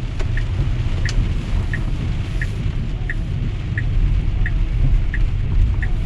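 A Tesla's turn-signal indicator ticking about every two-thirds of a second inside the cabin, over the steady low rumble of the car on the wet road in heavy rain.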